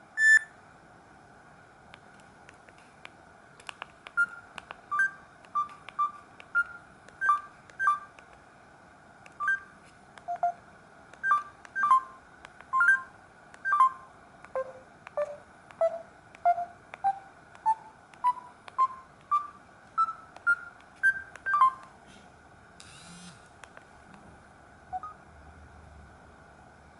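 A Samsung GT-C3592 mobile phone sounding a series of short electronic beeps, each at a single pitch. They come irregularly at first, then as an evenly paced run that drops in pitch and then climbs steadily step by step before stopping.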